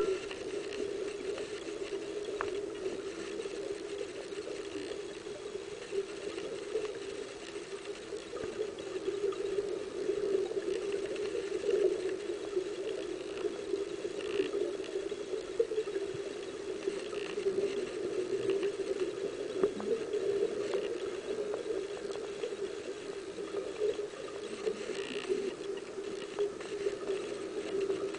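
Underwater ambience picked up by a camera filming beneath the surface of a lake: a steady muffled hum with fine crackling and a few light clicks and knocks.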